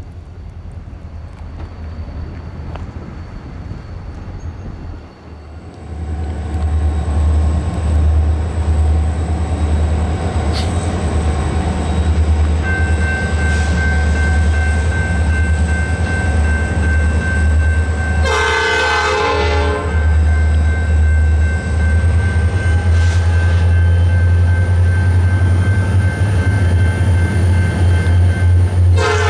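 Diesel locomotive rumbling heavily as it comes close, from about five seconds in, with a steady high whine over it. Its air horn sounds a short blast about two-thirds of the way through, and another starts right at the end.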